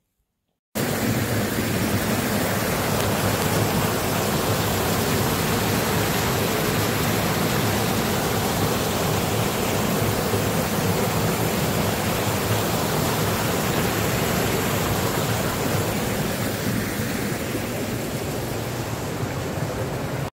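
Small waterfall pouring over rocks into a pool: a steady rush of water that starts suddenly about a second in.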